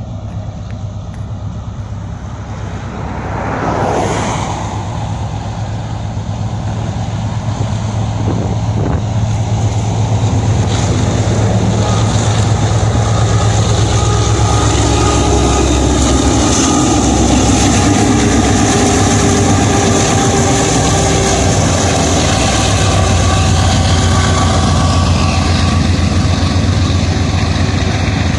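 A road vehicle rushes past about four seconds in. Then a Kenya SGR cargo train passes: the diesel locomotive's steady low drone and the rumble of its container wagons grow louder from about ten seconds in and hold steady.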